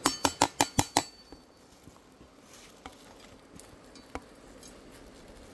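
Kitchen knife tapping chopped garlic and cumin off a plastic cutting board into a pot: about six quick taps in the first second, then two single clinks later on.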